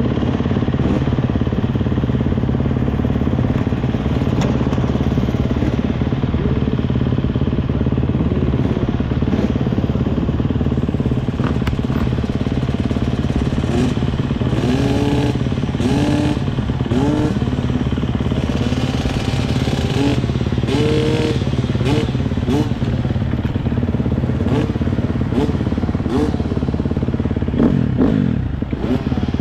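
GasGas MC 250 motocross bike engine running steadily at low revs, with a series of short rising and falling revs through the middle.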